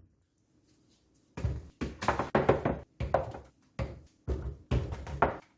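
Food storage containers knocking and clattering in quick irregular clusters as they are taken out of the refrigerator's door shelves.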